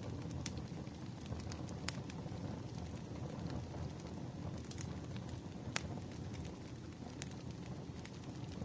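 Firewood burning, with a steady low rumble and irregular sharp crackles and pops throughout; one louder pop comes about six seconds in.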